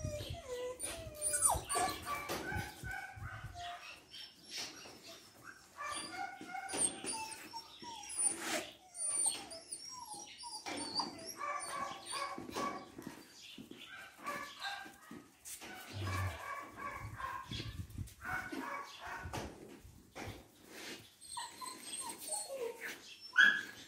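Dogs whimpering and yipping during rough play, with occasional barks, coming in short bursts on and off. A louder, sharper cry comes near the end.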